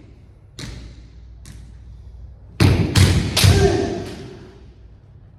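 Kendo sparring on a wooden floor. Two lighter knocks come in the first second and a half, then about two and a half seconds in there is a loud burst of stamping footwork and strikes with a short shout, dying away over the next second.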